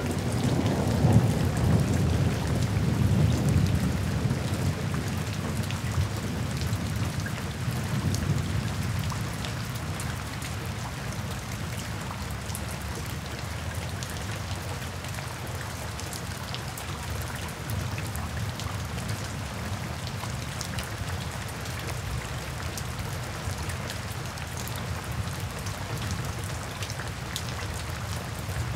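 Steady rain with fine patter of drops, and a low rolling rumble of thunder in the first several seconds that dies away.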